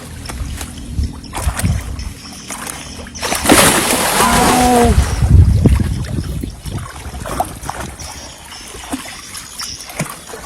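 Water splashing hard for about three seconds, starting about three seconds in, with a brief shout in the middle of it; before and after, a low rumble with scattered knocks.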